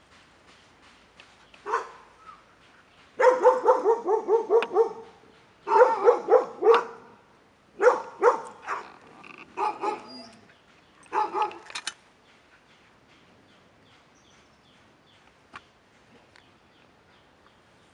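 Dog barking in several volleys of rapid barks, about six bursts over roughly ten seconds, then stopping. This is reactive barking at an unfamiliar dog passing by.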